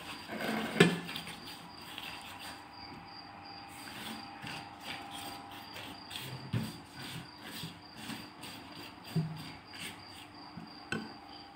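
Silicone pastry brush dabbing and stroking melted ghee onto thin phyllo (galash) sheets in a metal tray: a run of short crinkly rustles with a few dull knocks, the loudest about a second in. A steady high thin tone runs underneath.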